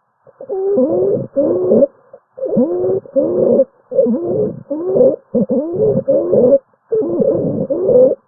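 Rapid breathing with musical, whistling tones on each breath, several pitches sliding up and down at once: the wheeze or stridor of a narrowed airway. Breaths follow each other closely, with short gaps.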